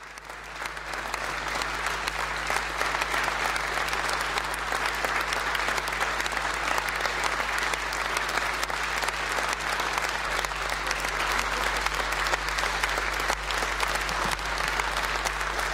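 Audience applauding: a dense, steady clapping that swells in over the first second and holds.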